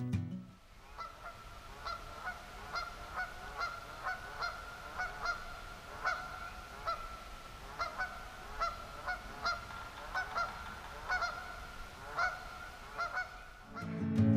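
Geese honking over and over, short calls coming about twice a second.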